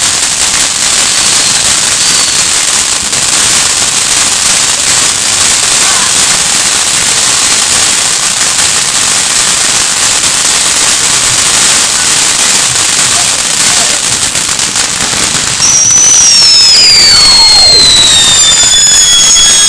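Ground fountain firework spraying sparks with a steady hissing crackle. About sixteen seconds in, louder shrill firework whistles start, several at once, gliding down and up in pitch.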